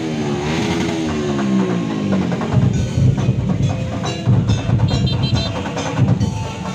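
Percussion music: drums and wood-block strikes beating a lively rhythm, led in over the first two seconds by a wavering pitched melody line that slides downward.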